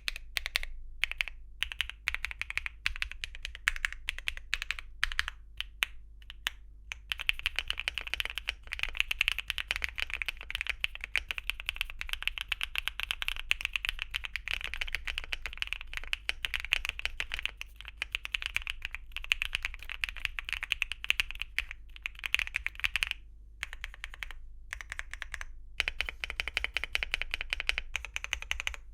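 Clacky typing on a Luminkey 75 V2 mechanical keyboard with Luminkey Astral linear switches and double-shot PBT Cherry-profile keycaps. Single keystrokes come scattered for the first several seconds, then give way to fast continuous typing, broken by two brief pauses near the end.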